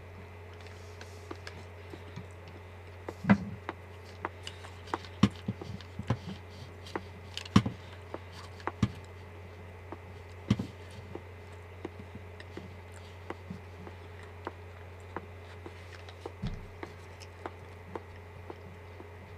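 Wooden chopsticks clicking and knocking against a ceramic bowl as food is picked up and eaten, in irregular sharp clicks, a few of them louder. A steady low hum runs underneath.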